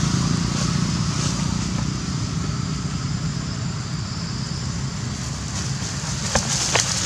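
Steady low rumble in the background, fading slightly, with a few sharp crackles of dry leaves near the end as monkeys scramble across the leaf litter.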